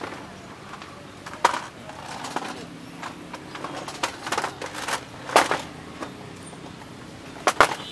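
Kitchen utensils clattering: scattered sharp knocks and scrapes, the loudest a little after five seconds in and again near the end, over a low steady background hum.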